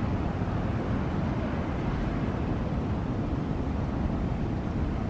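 Steady low rumble of a twin-engine jet airliner's engines as it rolls along a wet runway.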